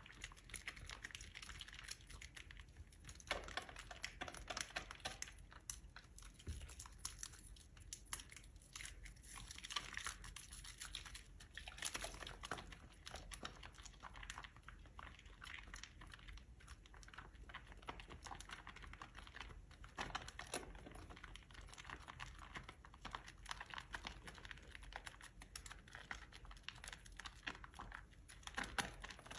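Close-up scuffing and squishing of soaked, mushy soap: a continuous run of soft, irregular crackles and clicks, with louder clusters every few seconds.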